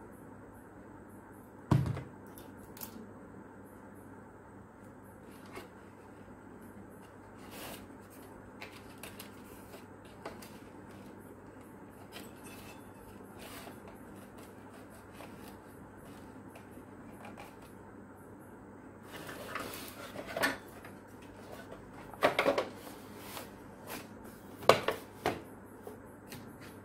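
Handling of an old rechargeable fan's plastic housing and hand tools: scattered light clicks and knocks, one sharp knock about two seconds in, and busier plastic clatter in the last third as the casing parts are fitted together.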